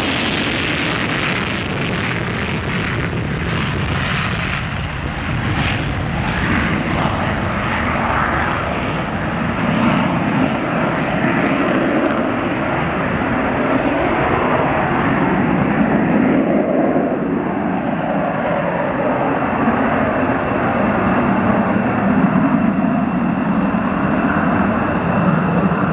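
Boeing EA-18G Growler's twin General Electric F414 turbofans heard as the jet departs after takeoff: a loud, rough jet rumble. The high hiss fades out after about five seconds, leaving a steady deep rumble that carries on.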